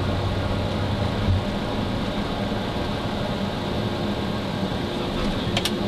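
Cockpit noise of a Boeing twin-jet airliner at takeoff thrust during the takeoff run and climb-out: a steady engine and airflow roar. A low rumble under it stops about a second in, and a short click comes near the end.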